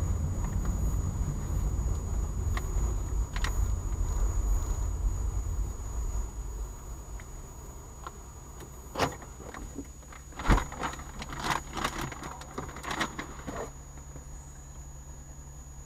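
Car engine running, heard from inside the cabin as a low rumble that eases off about six seconds in, followed by a scattered run of sharp clicks and knocks in the car.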